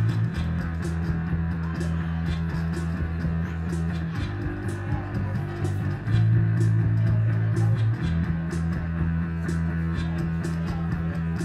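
Live rock band playing an instrumental passage: electric bass holding long low notes that change every couple of seconds, keyboard synth, and a steady beat of sharp percussive hits.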